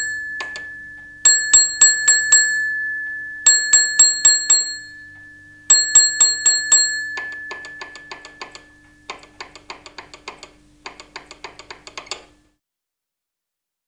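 Railway signal box block bell ringing the 'opening of signal box' code. A single beat comes first, then three groups of five ringing strikes (5-5-5). These are followed by three quieter groups of quick taps as the code is repeated back in acknowledgement.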